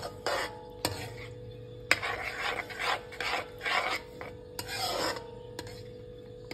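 Metal spatula scraping and stirring thick masala paste in a steel kadai: a run of rasping strokes of metal dragged across the pan, with a couple of sharp clinks of spatula on pan.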